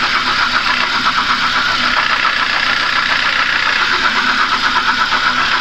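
A 2011 Kia Forte's four-cylinder petrol engine idling rough, running steadily with a rapid, uneven pulsing. It is misfiring: the scanner reads misfires on cylinders 2 and 3, and the mechanic puts it down to the ignition.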